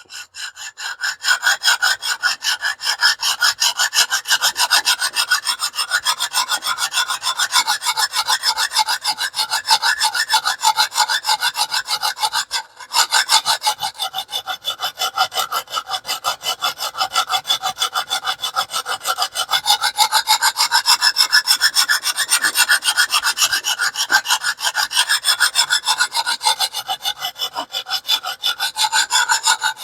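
A coarse 50-grit stone on a TS Prof Kadet Pro guided sharpening system scraping along a small cleaver's edge in rapid, even back-and-forth strokes, with a brief break about 13 seconds in. The bevel is still being ground and no burr has formed yet.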